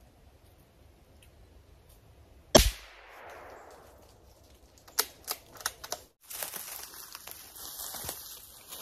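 A single shot from a hunting long gun fired up into the trees, its report echoing and fading through the woods over about a second. A few sharp clicks follow, then rustling and crackling in dry leaves and brush.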